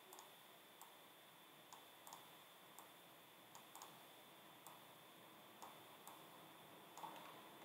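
Faint computer mouse clicks, about a dozen at irregular intervals, over near silence with a faint steady high-pitched tone.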